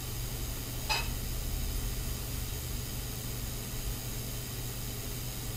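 Steady hiss with a low hum underneath, broken once by a short click about a second in.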